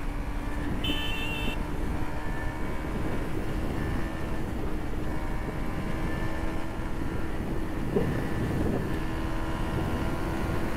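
KTM Duke 250's single-cylinder engine running at a steady cruising speed under wind rush while riding. A short rise in engine pitch comes about eight seconds in.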